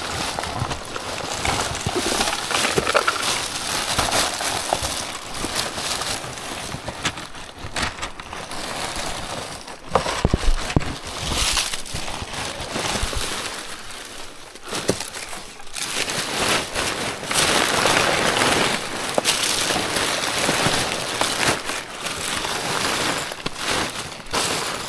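Cardboard, paper and plastic bags rustling and crumpling as gloved hands rummage through a full plastic wheelie bin, with a few sharp knocks partway through.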